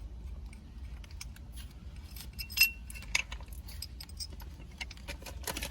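Small metal tools and hardware being handled, clinking and rattling lightly in scattered short clicks, with one louder ringing clink about two and a half seconds in.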